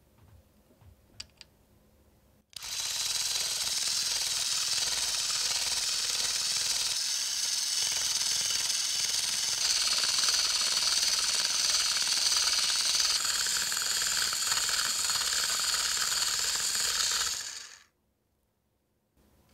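Miniature wire whisk beating a batter fast in a small ceramic bowl: a rapid, steady clatter lasting about fifteen seconds, starting a couple of seconds in and cutting off abruptly near the end. A few faint clicks come before it.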